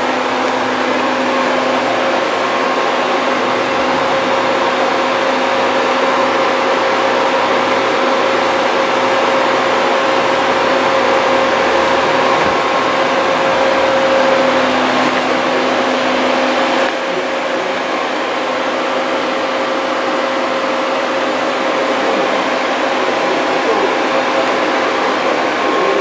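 CNC drilling machine running, its spindle drilling into a large metal plate: a steady machine noise with a constant hum in it, a little quieter after about 17 seconds.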